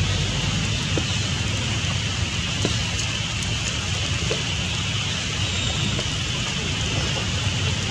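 Steady rain falling on forest foliage, with a few sharper drip ticks.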